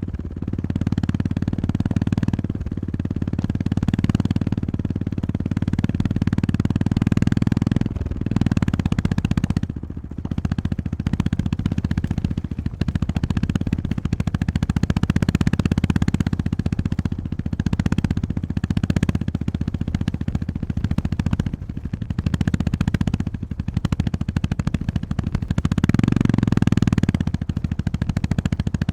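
Honda GB350S's air-cooled single-cylinder engine running under way, a steady low exhaust note, easing off briefly a few times as the throttle is rolled back, around a third of the way in and again later.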